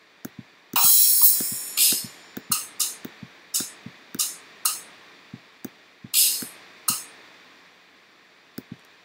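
Sampled electronic drum and cymbal sounds played back one at a time by a computer drum-kit program: an uneven string of single drum hits, with long cymbal crashes about a second in and about six seconds in and shorter cymbal hits between, then two quick hits near the end.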